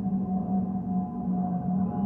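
Airbus A320 flying overhead, its jet noise carrying a steady whistling hum with fainter higher tones above it, gently pulsing in level: the fuel over-pressure protector (FOPP) cavity whistle typical of the A320 family.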